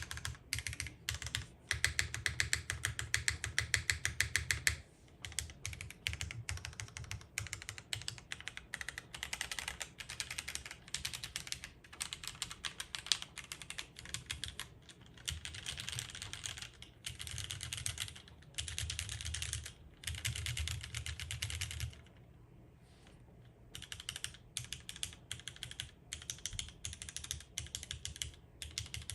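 Fast typing on a mechanical keyboard with lubed and filmed Cherry MX Vintage Black linear switches on an aluminium plate, O-ring mounted with no foam, under GMK doubleshot ABS keycaps. The keystrokes come in quick runs of a few seconds each, with a brief pause about 22 seconds in.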